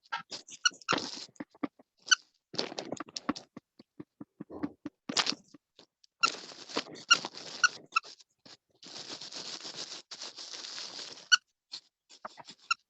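Scratching and rustling with short squeaks scattered through it, several of them in a row, and a longer stretch of dense scratching in the second half.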